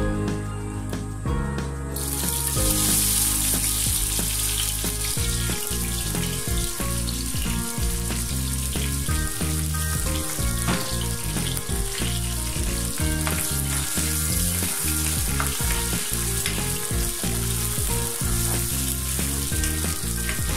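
Chopped onions hitting hot oil in a non-stick wok: a loud sizzle starts suddenly about two seconds in and keeps going steadily as they fry. Background music plays underneath.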